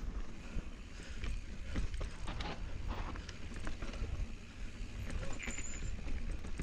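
Mountain bike rolling fast down a dry dirt trail: tyres crunching over dirt and leaves, with scattered rattles and clicks from the bike over bumps and steady wind rumble on the chest-mounted camera's microphone. A brief high squeak about five seconds in.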